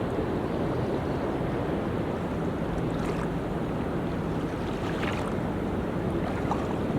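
Ocean waves washing steadily onto a beach, with a low rumble of wind on the microphone.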